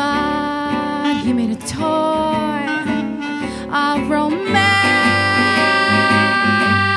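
Live swing jazz: a saxophone melody over acoustic guitar and upright bass, ending in one long held note in the second half.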